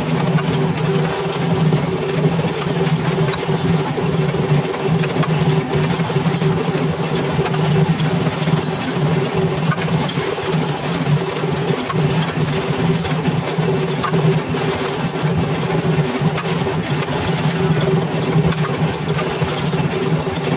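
Belt-driven vertical machine spindle running with a steady hum, its cutter working a clamped iron casting, with a fine crackle of metal being cut.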